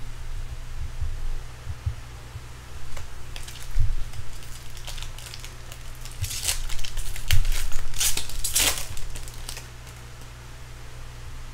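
Baseball cards and their plastic sleeves or foil pack wrapping being handled, with scattered crinkling and rustling and a few small clicks, busiest in the second half.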